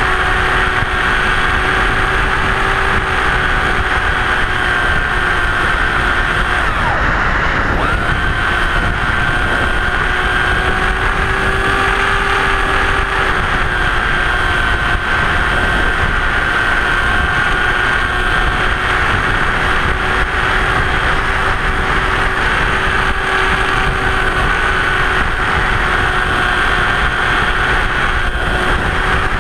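Electric motor and propeller of a Blitz RC Super Skysurfer RC plane whining at a steady pitch, heard from the onboard camera over rumbling wind noise. The pitch dips briefly about seven seconds in and recovers. The failsafe has engaged with the autopilot flying, so the motor keeps running on nearly drained LiPo batteries.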